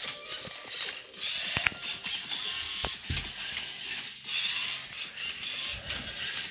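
LEGO Mindstorms EV3 Rubik's cube solver at work: its motors whir in short runs as it turns and flips the cube, with a few sharp plastic knocks as the cube is tipped over. Background music plays underneath.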